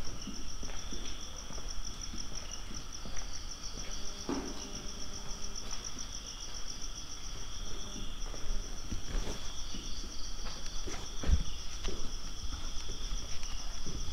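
Night insects, crickets, chirring steadily: a fast pulsing high trill over a lower steady buzz. Scattered light knocks sound through it.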